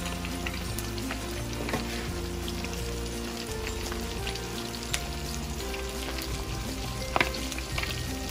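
Whole chicken deep-frying in hot oil: a steady bubbling sizzle with scattered crackles and pops, the loudest pop about seven seconds in.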